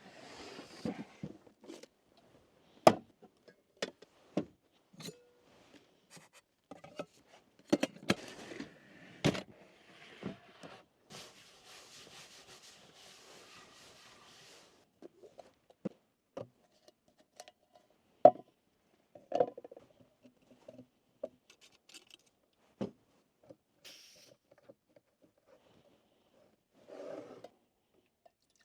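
Camp coffee gear being handled: scattered clicks, clinks, knocks and scrapes of utensils and containers, with a steady hiss lasting a few seconds near the middle.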